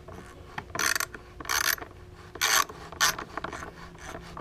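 Hand socket ratchet clicking in repeated strokes while turning the bolts on a lawnmower's recoil cover: four strong bursts of clicking well under a second apart, then a few fainter ones near the end.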